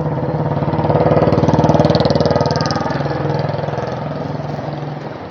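A motor vehicle's engine running as it passes close by, growing louder to a peak about two seconds in and then fading away.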